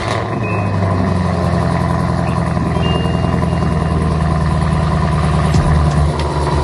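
A muscle car's V8 engine running loud and steady, with a low engine note.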